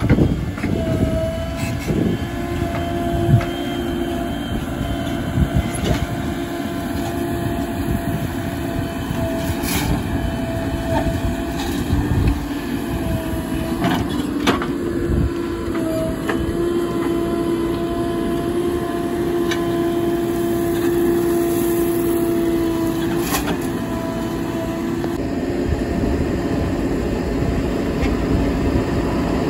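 Diesel engine of a JCB backhoe loader running under load while digging and loading mud, with a steady whine that holds for several seconds at a time and breaks off, and a few sharp knocks.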